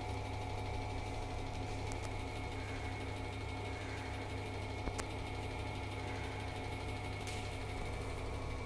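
Compression testing machine running with a steady hum while it applies a rising compressive load. A single faint tick comes about five seconds in.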